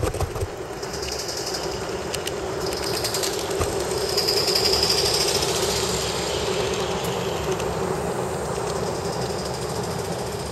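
Large-scale model of a Bavarian S 2/6 steam locomotive running on its track, its wheels rumbling and clattering over the rails. The sound swells as it passes close by about four to five seconds in, then eases off a little. There is a sharp thump right at the start.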